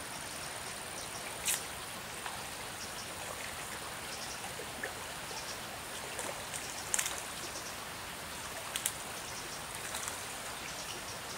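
Riverside ambience: a steady hiss of flowing water, with a faint, steady high-pitched whine and a few short sharp clicks, the loudest about a second and a half in and two more around seven and nine seconds.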